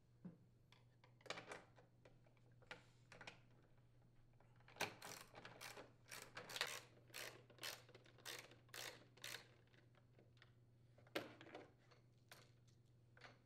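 Ratchet wrench with a 3/8-inch socket clicking as the snowblower console's mounting bolt is backed out: a run of light, quick clicks at about three a second, preceded by a few scattered clicks.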